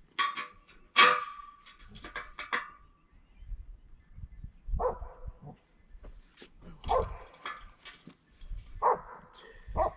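A dog barking five times in short single barks spaced a couple of seconds apart, the first the loudest, with a few light clicks between.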